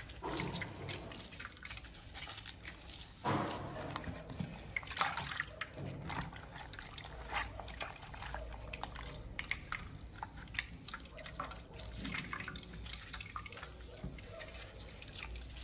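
Ground raisin pulp squeezed by hand in a cloth strainer over a steel bowl: liquid dripping and splashing back into the bowl, with irregular small wet splashes throughout.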